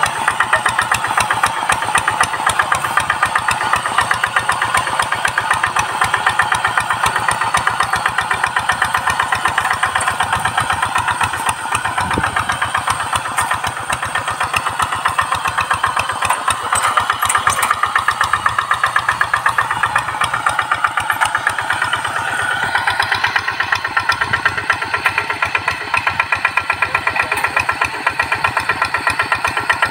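Single-cylinder diesel engine of a two-wheel hand tractor chugging steadily under load while pulling a harrow through soil. Its note rises a little about two-thirds of the way through.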